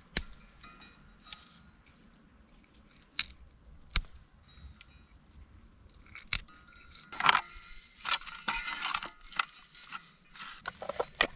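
A few sharp knocks and clinks, then from about six and a half seconds a busy stretch of rustling and clattering: camp gear being handled and set up.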